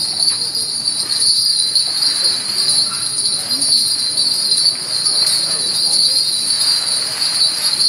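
Cicada buzzing: one loud, steady, shrill drone with no pulsing.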